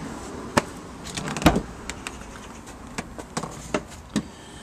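Scattered clicks and knocks from handling around a van's open rear and side doors, about seven in all at uneven spacing, the loudest a dull thump about a second and a half in.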